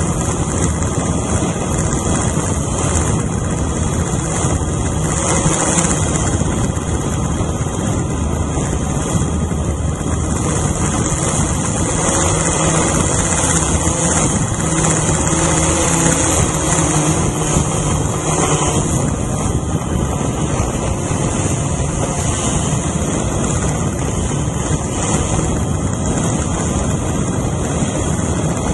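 Small drone's electric motors and propellers buzzing steadily while it hovers, heard close up from a camera mounted on the drone, with a bright hiss over the buzz.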